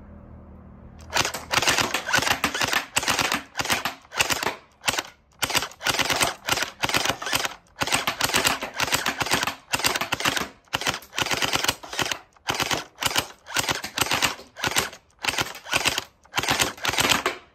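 Gel Blaster Starfire XL electric gel blaster firing full-auto at its full-power setting: a fast rattle of shots in repeated short bursts with brief pauses, starting about a second in.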